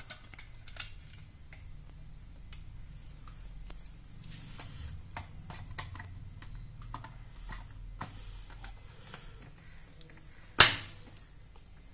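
Small plastic clicks and handling sounds as the rotary handle is fitted onto a Legrand 250 A four-pole moulded-case circuit breaker. About ten and a half seconds in comes one loud, sharp snap: the breaker's mechanism switching over as its on-off position is operated through the handle.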